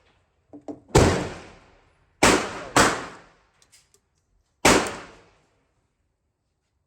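Four gunshots, each a sharp crack with a short ringing decay; the second and third come about half a second apart.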